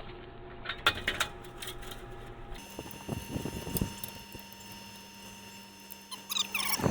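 Scattered sharp clicks and knocks of hand tools handled against metal, over a faint steady hum.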